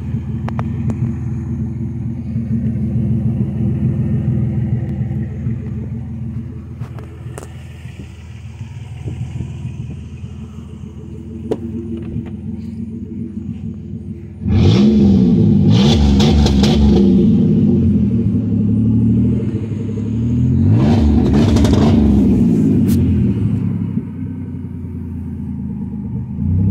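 Dodge Caravan's 3.3 L V6 running straight-piped, its exhaust cut off right after the catalytic converters. It idles, then is revved sharply twice, about halfway through and again a few seconds later, each rev rising and falling back to idle.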